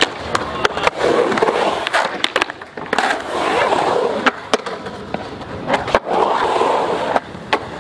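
Skateboard wheels rolling and carving through a concrete bowl, the rolling noise swelling and fading as the skater rides up and down the walls, broken by many sharp clacks from the board and trucks.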